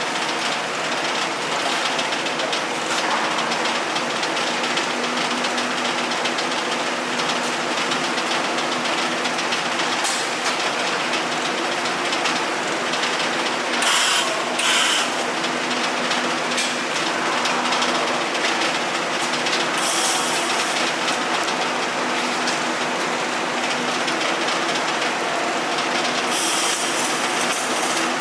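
Electric arc welding: the arc's steady crackle and hiss over the hum of welding machines, with a few brief, louder hissing bursts.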